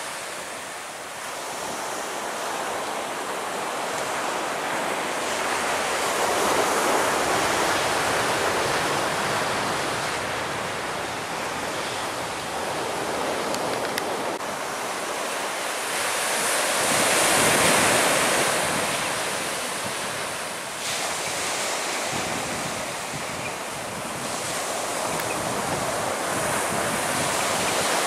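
Surf and wind buffeting the microphone: a steady rushing noise that swells louder a few times, notably about two thirds of the way in.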